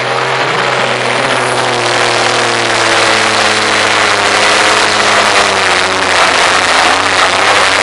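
A pulling tractor's diesel engine running flat out under full load as it drags a weight sled, loud and steady, its pitch sagging slightly over the first few seconds.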